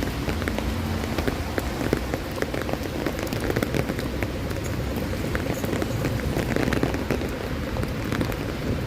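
Steady rain falling, with many small, irregular drop hits close to the microphone over a low, steady rumble.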